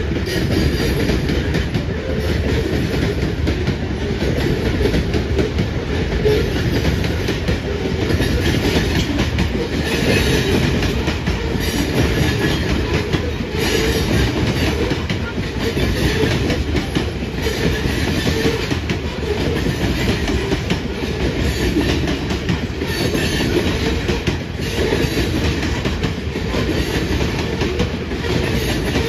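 Freight train of covered hopper cars rolling past at close range. Steel wheels clatter over the rail in a steady repeating rhythm, with constant rumble underneath.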